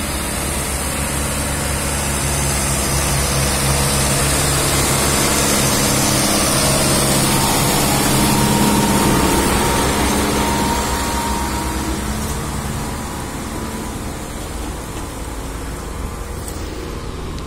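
Kubota MU5501 tractor's four-cylinder diesel engine pulling a heavily loaded trailer (about 24 tons). It grows louder as it approaches, passes close about eight to nine seconds in, then fades as it moves away. A thin whine rises while it is closest.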